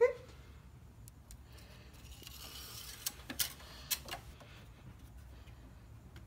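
Light clicks and a brief scrape as an engine oil dipstick is gripped and drawn out of its tube.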